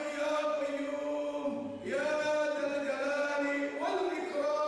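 Sung chanting in long, held notes. A new phrase begins about two seconds in, and another slides up into a fresh note near the end.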